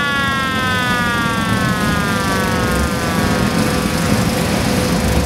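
A high whine with several overtones slides slowly down in pitch and fades out about three seconds in, like a blower spinning down, over a steady hum and a rough low rumble. It is most likely the air blower used to start the pulsejet snowmobile.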